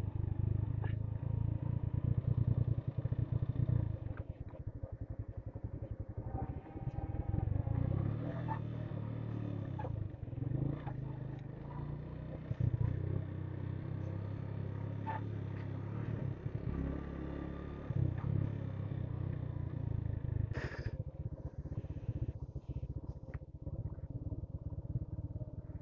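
Small motorcycle's engine running at low, uneven revs while riding downhill on a rough road, with scattered small clicks and rattles from the bike.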